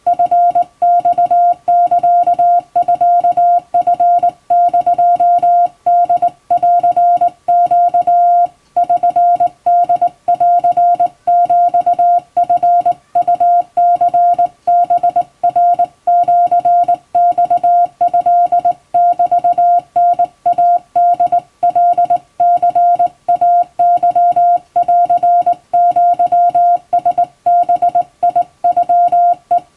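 Hand-keyed Japanese Wabun Morse code: a single steady mid-pitched tone switched on and off in dots and dashes, with one longer pause about eight and a half seconds in.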